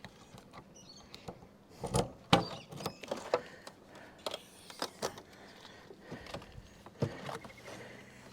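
Irregular clicks, knocks and rattles of hand work on a car's rear mudguard, loudest about two seconds in.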